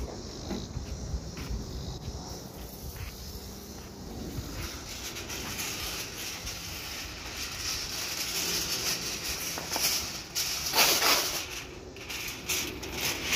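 Aluminum foil crinkling as a sheet is pulled off the roll and handled, growing louder over the second half and loudest about eleven seconds in.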